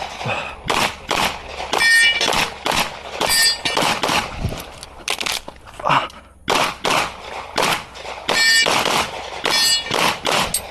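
A string of shots from a CZ Shadow 2 pistol during a USPSA stage, fired in quick pairs and runs a fraction of a second apart, with a brief pause about six seconds in. A few of the shots are followed by a short metallic ring.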